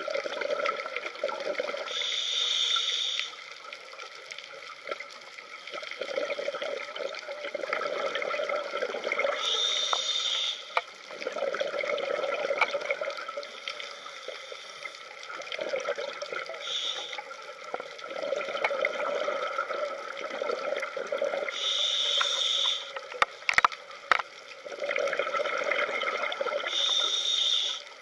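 Scuba diver breathing through a regulator underwater: five short hissing inhales, one every five to seven seconds, each followed by a long rush of bubbling exhaled air. A few sharp knocks a little past two-thirds of the way through.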